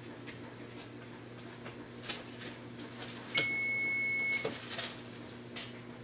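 An electric oven's control panel beeps once, a single steady high tone about a second long, with a few light clicks and knocks of handling at the stove around it.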